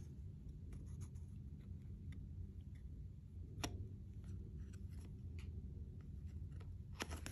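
Quiet handling of a cardboard hang tag on a plush toy: faint scratches and taps of fingers on card, with one sharper tick about halfway and two near the end, over a steady low hum.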